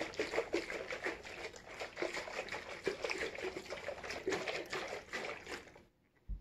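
Onion must sloshing and splashing inside a gallon glass jug as it is shaken hard to dissolve the sugar poured in on top of it. The sloshing stops shortly before the end, and a single low thump follows.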